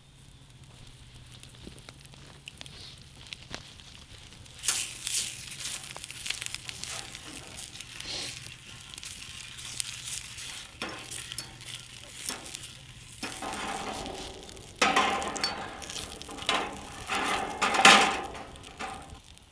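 Sausages sizzling in a pan over a campfire. The hiss starts suddenly about five seconds in and comes in louder surges near the end.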